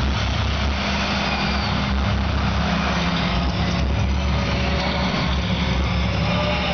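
Rock concert din in an arena: a crowd's steady roar over a low, sustained droning tone from the PA.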